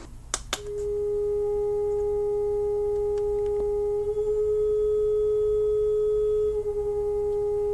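Aero Instrument Co. Model 4005-115 vibrating-reed frequency meter humming loudly: its 400-cycle reed is driven at about 404 Hz, its resonant frequency, and buzzes as a steady pure tone that wavers slightly now and then. A couple of short clicks come just before the tone swells, under a second in.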